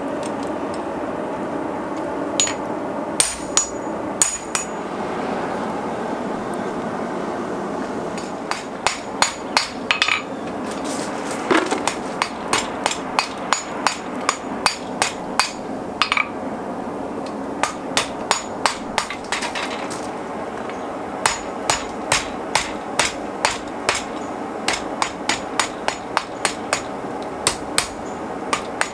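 Hand hammer forging a hot steel bar on a steel anvil: runs of sharp blows about two a second with short pauses between them, each blow ringing off the anvil, over a steady rushing background.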